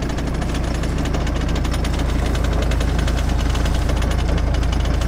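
Sailboat's inboard diesel engine running steadily while motoring, a low, even drone with a fast regular knock.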